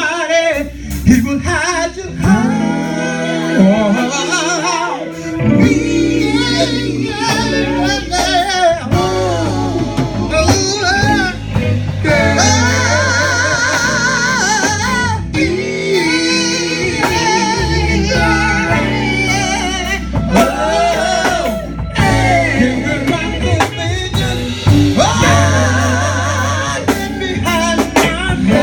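Gospel singing with wavering, melismatic vocal lines over a band of electric guitar, bass and drum kit.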